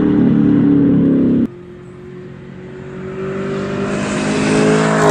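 Supercharged V8 of a Gen6 Camaro ZL1 through a non-resonated AWE Track Edition cat-back exhaust, running loud under hard acceleration, then cutting off abruptly about a second and a half in. The engine then comes back quieter and builds steadily in volume and pitch as the car approaches. At the very end the pitch starts to drop as it draws level.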